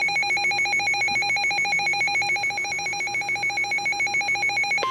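Electronic emergency-alert attention tone, a loud warble that switches rapidly back and forth between two pitches, sounded to open a severe thunderstorm warning broadcast.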